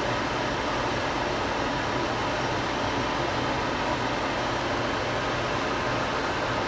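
Steady fan whir with a faint low hum.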